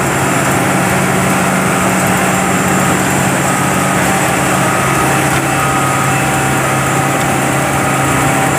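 Cedarapids 1900C profiler at work: its 350 hp Detroit Diesel runs steadily under load, loud and unbroken, while the cutter drum grinds up the road surface.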